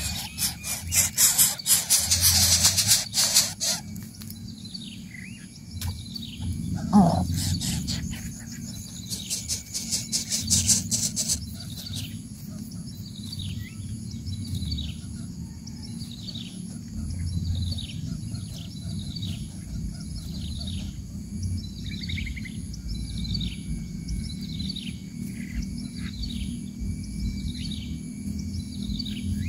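Dry leaves of a greater coucal's nest rustling and crackling for the first few seconds and again around eight to eleven seconds in, with one loud short falling sound about seven seconds in. Throughout, a bird nearby repeats a short falling chirp about once a second over a faint steady insect whine.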